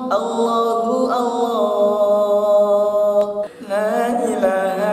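Unaccompanied men's voices singing in harmony, holding long notes and moving between chords. The singing breaks off briefly about three and a half seconds in, then carries on.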